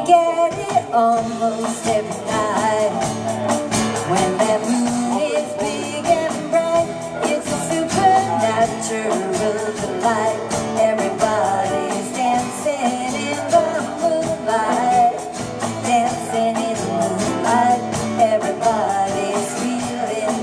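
A small live band playing an upbeat pop-rock song, with acoustic guitar, electric lead guitar and a drum kit, and a voice singing over them.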